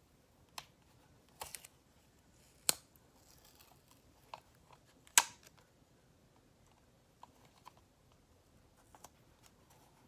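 Scattered sharp clicks and ticks of fingernails picking and prying at the packaging of a new pressed-powder compact, with two louder snaps, the loudest about halfway through.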